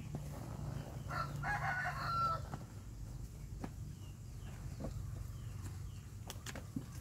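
A rooster crowing once, about a second in, over light clicks of plastic toys being handled.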